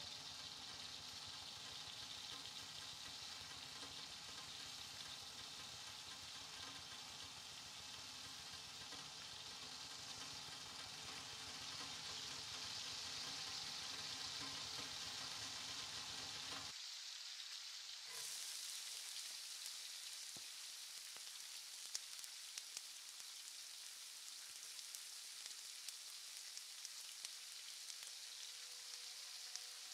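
Food frying in a hot pan: a steady sizzle. About two-thirds of the way through the sound changes abruptly to a thinner, brighter sizzle with occasional sharp pops of spattering fat.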